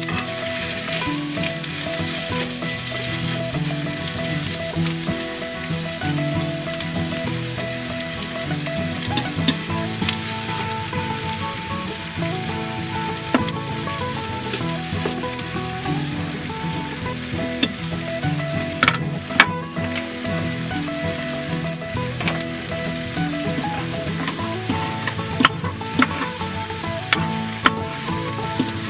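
Sea scallops sizzling steadily in a frying pan on a gas stove, stirred now and then, with a few sharp clicks of a knife or utensil against the pan or cutting board, the clearest about two-thirds of the way through and near the end.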